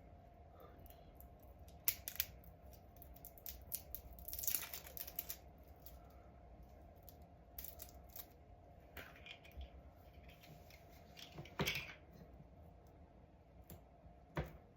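Small handling noises: scattered sharp clicks and short rustling snips, a handful of them louder, over a faint steady hum.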